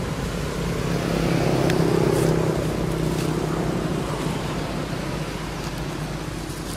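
Steady engine hum of a passing motor vehicle, swelling about two seconds in and then slowly fading away.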